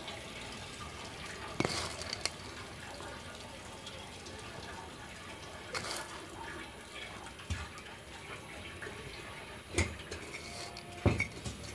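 Quiet kitchen background: a faint steady hiss with a few soft knocks and clicks, one about two seconds in, one midway and two near the end.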